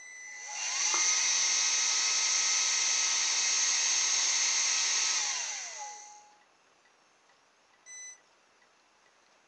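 Hair-dryer ducted fan motor spinning up about half a second in, running with a steady whir, then winding down around six seconds in. A short electronic beep comes near the end.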